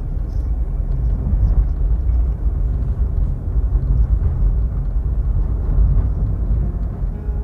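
Electric sewing machine running as it stitches fabric, a steady low hum.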